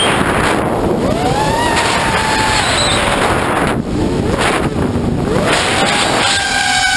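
Electric motors and propellers of a small RC aircraft whining, the pitch rising about a second in, dropping near the middle, then climbing again and holding steady near the end as the throttle changes. Wind rushes on the onboard camera's microphone throughout.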